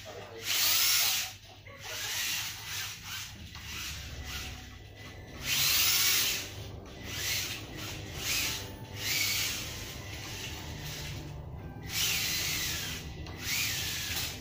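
Kyosho Mini-Z AWD radio-controlled car drifting on marble tile: repeated bursts of tyres scrubbing across the smooth floor, with the small electric motor whining up and down as the throttle is blipped.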